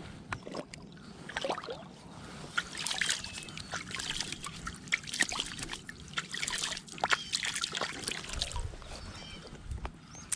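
Water splashing and trickling as a largemouth bass is lowered into the pond shallows and released, mixed with irregular rustling and crackling of rushes and dry stems underfoot.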